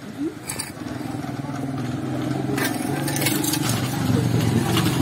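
Motorbike approaching, its engine running steadily and getting louder as it nears.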